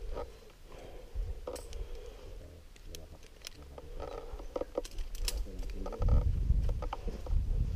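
Scattered sharp clicks and clinks of metal climbing gear, such as carabiners and a figure-eight descender, being handled on a rope. About six seconds in a low rumble comes in and lasts a second or two.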